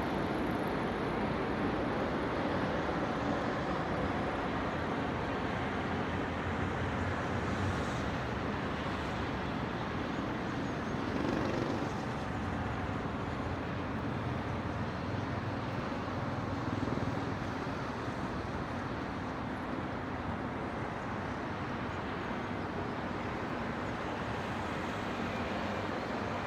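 Steady city traffic noise: a continuous wash of road vehicles with no single vehicle standing out.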